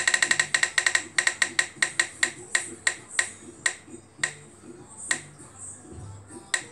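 Spin-the-wheel app on a phone, heard through the phone's speaker, ticking as its wheel spins: rapid clicks, about eight a second at first, that slow steadily as the wheel decelerates, down to a tick every second or so. The last tick comes about six and a half seconds in as the wheel stops.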